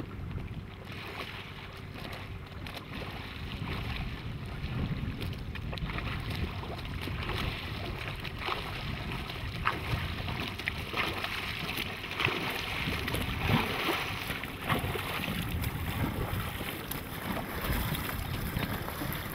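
A paddle dipping and splashing in open water in uneven strokes, with wind rumbling on the microphone.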